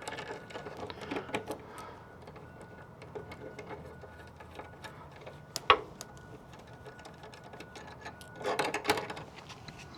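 Nuts being worked off old gate-latch hardware by hand: small, irregular metallic clicks and ticks, with one sharp louder click a little past halfway and a busier run of clicks near the end.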